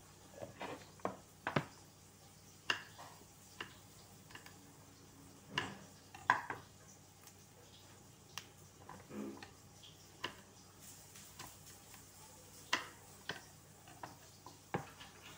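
Green beans being trimmed by hand and cut on a cutting board: quiet, irregular snaps, clicks and taps about once a second, with a knife tapping the board near the end.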